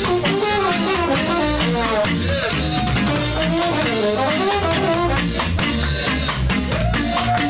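Live ska band playing: a saxophone and trumpet melody over drum kit and bass, with a long held horn note near the end.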